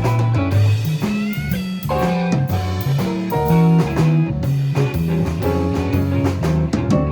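Live band playing an instrumental passage: a guitar lead with bent notes about a second in, over a walking bass line and drum kit.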